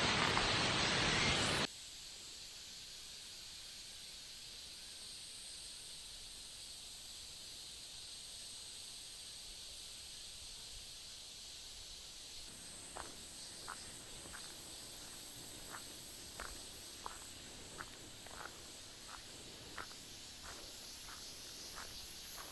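Forest ambience: a steady high-pitched hiss of insects, joined about halfway through by a run of light, regular clicks, one or two a second. A loud rushing noise cuts off abruptly in the first two seconds.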